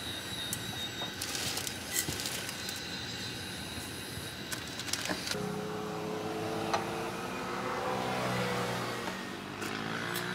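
Portable butane cassette stove burner hissing steadily under a steaming kettle, with a few light clicks. About five seconds in, background music with steady held notes comes in over it.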